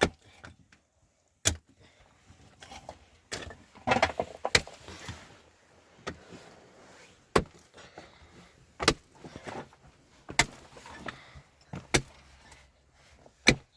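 A string of sharp knocks, about one every second and a half, with faint rustling and handling noise between them.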